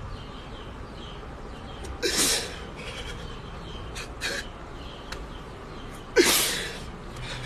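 A man crying: two sharp, breathy sobs, about two seconds in and again about six seconds in, with a few faint sniffs between them.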